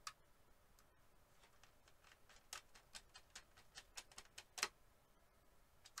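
Faint, scattered small clicks and ticks of a precision screwdriver working a screw into a laptop's 2.5-inch SSD bracket. There is one click at the start, then an uneven run of them from about one and a half seconds in, the loudest near the end.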